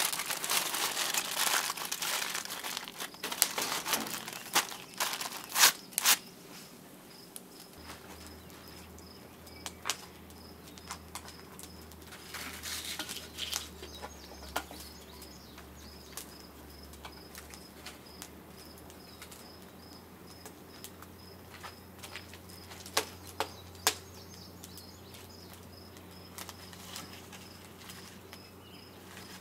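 Wood fire crackling in a kiln firebox: dense crackle for the first several seconds, then only scattered sharp pops. A steady pulsing insect chirp runs underneath, and a low hum comes in about eight seconds in.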